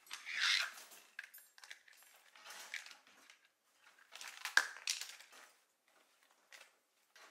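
A shiny gold pouch rustling as a child's hands open it and rummage inside, in three main bursts with small rustles between.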